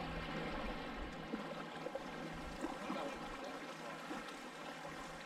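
Lake water lapping gently, a steady soft wash with no strong single sounds.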